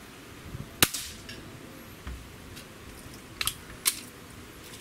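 Beeman R7 spring-piston breakbarrel air rifle firing once, a sharp crack about a second in. A few seconds later come three sharper metallic clicks as the barrel is broken open to cock it.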